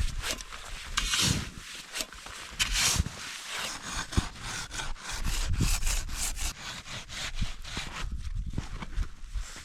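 Collapsible snow shovel digging into packed snow: repeated scraping strokes with dull thuds, irregular, about one a second.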